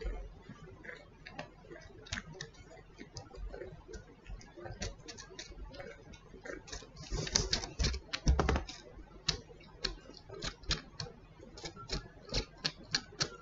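Kitten suckling on a person's earlobe close to the microphone: irregular wet smacking clicks, with a louder, denser stretch of them a little past halfway through.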